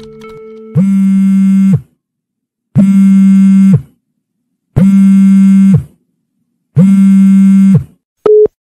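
Mobile phone ringing: four loud buzzy electronic rings, each about a second long and two seconds apart, then a short higher beep near the end as the call is taken.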